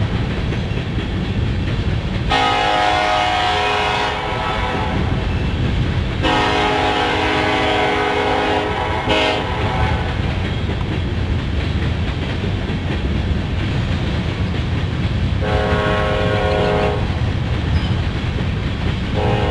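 Diesel locomotive horn on a BNSF empty coal train sounding about four chord blasts of one to three seconds each. Beneath the horn runs the steady low rumble and wheel clatter of empty coal hopper cars rolling past.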